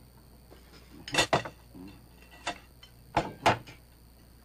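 Cutlery clinking and knocking against plates at a table, a few sharp clinks at irregular moments.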